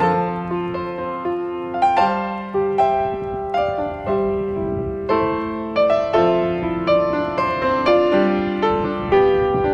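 Background piano music: single notes and chords struck one after another every half second to a second, each ringing out and fading.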